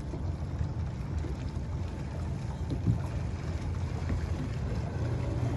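Boat engine idling, a steady low hum, with one brief knock about three seconds in.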